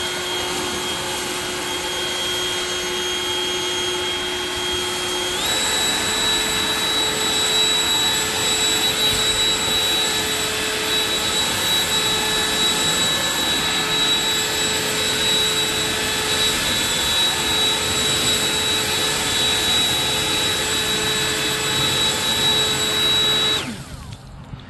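Echo DPB-5800T 58-volt battery backpack blower running with a steady fan whine and rushing air. About five seconds in, its pitch steps up and it gets louder as the motor speeds up; near the end it cuts off.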